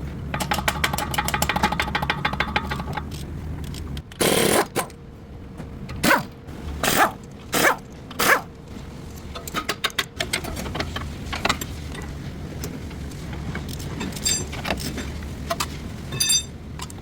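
Rapid mechanical clicking for about three seconds, then a run of separate short scrapes and knocks from work on a car's front drive shaft.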